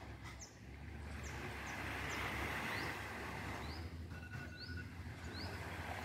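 A bird repeating a short rising chirp, about one every second, over a steady background hiss and low rumble.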